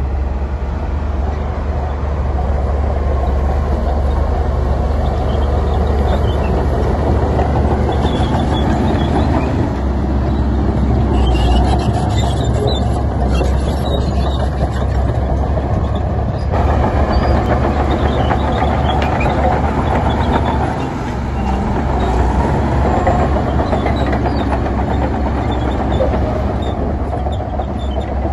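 Heavy diesel construction machinery running steadily, a loud low drone that changes abruptly about sixteen seconds in.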